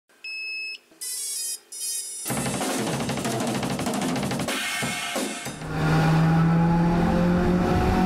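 Intro music sting: three short electronic tones, then a burst of drums and cymbals from about two seconds in, ending on a long held low chord.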